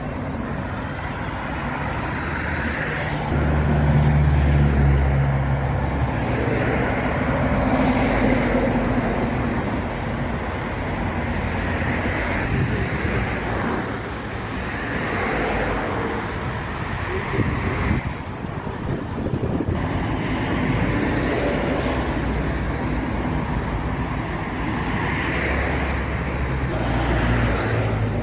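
Road traffic going by, vehicles passing one after another in swells, with a heavy engine running steadily for a couple of seconds at a time.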